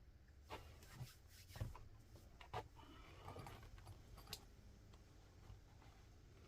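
Faint, scattered clicks and knocks of small objects being handled, about half a dozen over a few seconds, with a light scratching between them.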